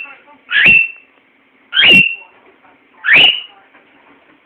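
Cockatiel giving loud, repeated contact calls: three shrill calls, each sweeping sharply up and then holding a high note, a little over a second apart.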